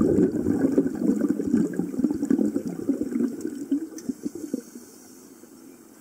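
Exhaled air bubbling out of a scuba regulator's exhaust, heard underwater: a gurgling rush of bubbles that fades out about four and a half seconds in, as the exhalation ends.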